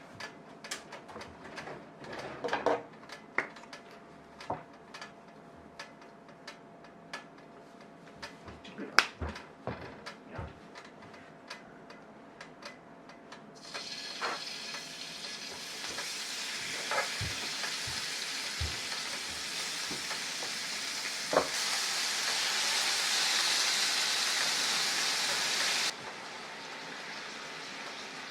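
Kitchen utensils clinking and tapping, then about halfway through food starts sizzling in a hot frying pan, growing louder with a few taps of a utensil, before the sizzle cuts off suddenly near the end.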